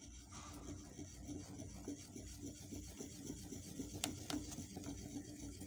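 Wooden spoon stirring and scraping against a stainless steel bowl, folding whipped cream into an ice cream custard: a steady run of quick, fairly faint scraping strokes.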